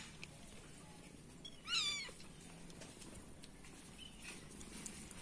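A cat gives a single short, high-pitched meow about two seconds in.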